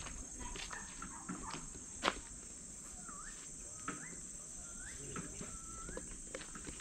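Rainforest ambience: a steady high insect drone, with a few short rising and falling bird whistles in the middle. Scattered taps and clicks, the sharpest about two seconds in.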